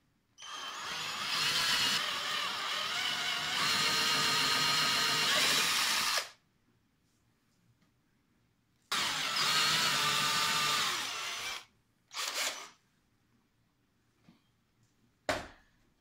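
Cordless drill boring 8 mm dowel holes into the edge of a particleboard strip, its bit fitted with a depth stop. It speeds up and runs steadily for about six seconds, stops, runs again for about three seconds, then gives two short bursts near the end.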